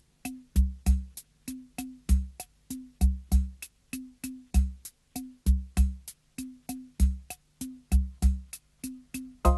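Background music: a steady drum-machine beat of deep kick thumps with short clicks in between, about three or four strokes a second.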